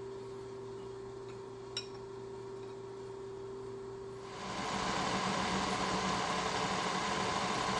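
Steady machine hum with a single sharp click about two seconds in; about four seconds in, a milling machine starts up and then runs, louder and steady.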